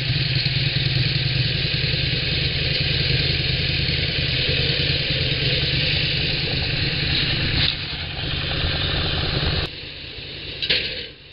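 Engine-driven band saw of a Norwood push-pull sawmill running under load as the band blade cuts through an alder log. About ten seconds in, the cutting noise drops suddenly to quieter running, followed by a short scrape.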